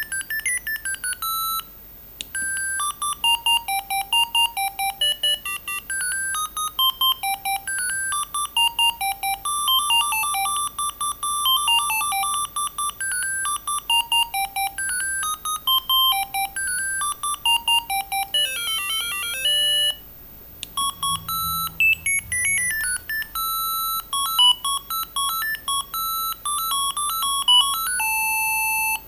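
Siemens A55 mobile phone playing its built-in ringtones: simple beeping melodies, one note at a time. The tune breaks off about two seconds in and again about twenty seconds in, where a new ringtone starts, and the last one ends on a long held note.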